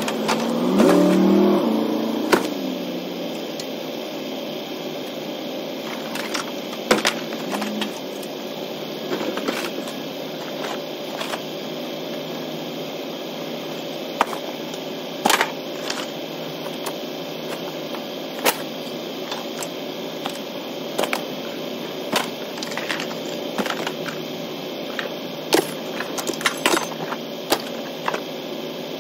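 Steady engine hum heard from inside a vehicle, with scattered short clanks and knocks of scrap metal being unloaded from a trailer. A brief louder sound that rises and falls in pitch comes about a second in.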